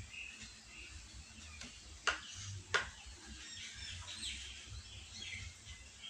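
Birds chirping faintly in the background, with two sharp knocks about two and three seconds in.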